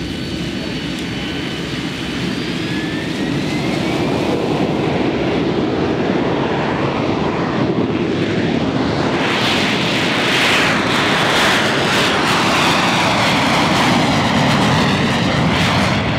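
AV-8B Harrier II jet engine: a high whine that rises slightly a few seconds in, over a steady roar that grows louder from about nine seconds in and stays loud.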